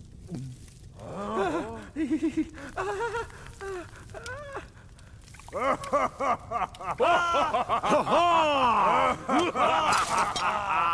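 Men's hearty laughter, one or two voices at first, then a whole group laughing together from about halfway through, with a knock of wooden tankards toasting near the end.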